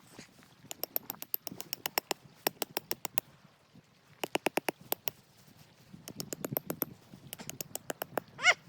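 Rapid ticking clicks in short runs of about a second each, with a short squeak that rises and falls near the end.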